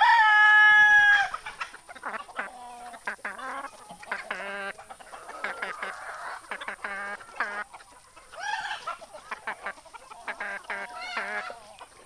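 Desi chickens calling in a flock. A rooster crows loudly right at the start, ending in a long held note, then hens and roosters cluck and call in short bursts on and off.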